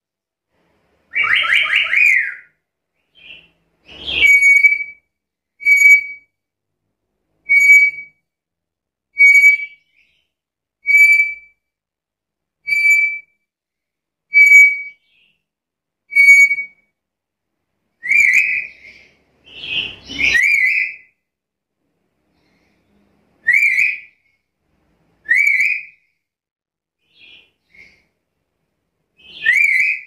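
Black-capped lory calling in clear whistles: a run of about seven short, identical whistle notes nearly two seconds apart, then several upward-sliding whistles. Two harsher, noisier calls are mixed in, one early and one about two-thirds of the way through.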